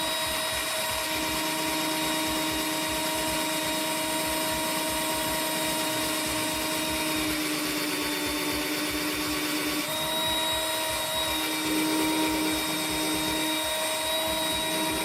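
Cheap Ozito hobby drill's small motor running continuously with a steady high whine. Its pitch shifts slightly a few times as the bit works the hole.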